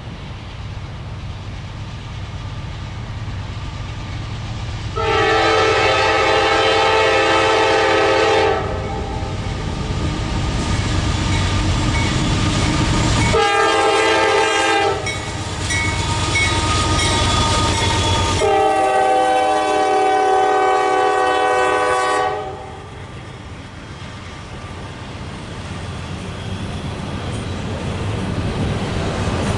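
Locomotive air horn sounding three blasts: a long one about five seconds in, a short one, then another long one. They sound over the steady rumble of a train, which grows louder toward the end.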